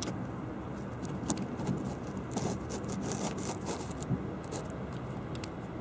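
Fireworks display: scattered sharp pops and crackling from bursting shells and crackle stars, with a denser patch of crackling a little over two seconds in, over steady background noise.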